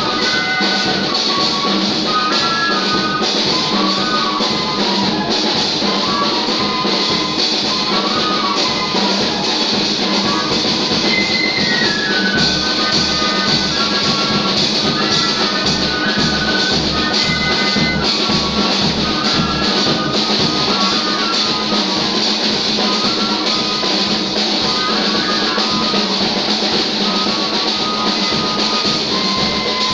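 Band music with a steady drum beat and a melody line that steps up and down.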